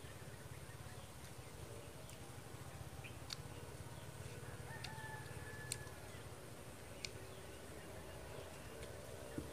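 Faint outdoor ambience: a steady low rumble with distant birds calling in thin held notes, and a handful of sharp clicks scattered through.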